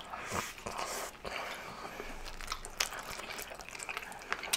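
Chewing and biting into sausages in buns close to the microphone: soft mouth noises with scattered small clicks.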